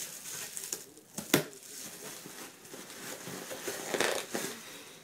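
A cardboard shipping box and its packing being handled and opened, rustling and crinkling, with a sharp knock about a second and a half in and a louder rustle about four seconds in.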